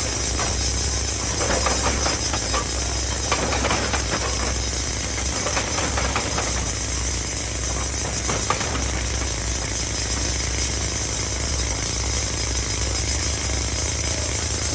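Excavator engine running steadily, with scattered knocks and scrapes of rock against the machine's steel bucket or breaker.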